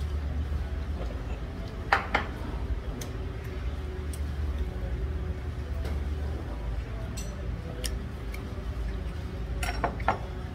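Tableware clinking and knocking on a table: two sharp knocks about two seconds in, then a cluster of clinks near the end as a stoneware cup is set down. A steady low hum sits underneath.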